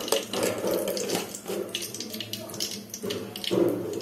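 Freshly poured sunflower oil sizzling and crackling in a hot aluminium kadai, with irregular small pops.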